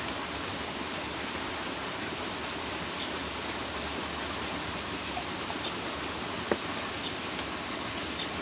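Steady, even background hiss, with a few faint clicks and one short knock of eating at the table about six and a half seconds in.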